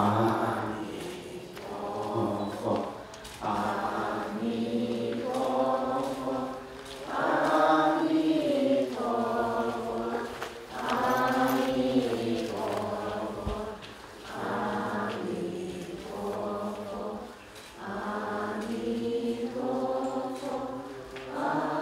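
A group of voices chanting a Buddhist chant in unison, in a run of short sung phrases with brief pauses between.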